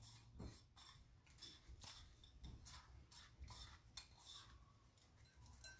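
Near silence, with faint short scratches of fingers stirring a dry spice rub in a small bowl.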